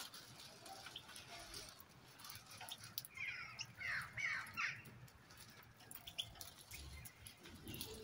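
European goldfinches calling, with a short cluster of harsh, sliding calls about three to five seconds in, amid faint scattered clicks.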